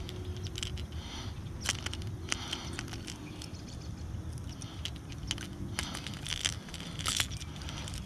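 Scattered light clicks and rattles of a metal-hooked topwater lure being worked free of a small smallmouth bass by hand, over a steady low hum.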